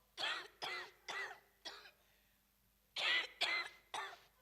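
A woman with asthma coughing in two bouts: four short coughs, then three more after a pause of about a second.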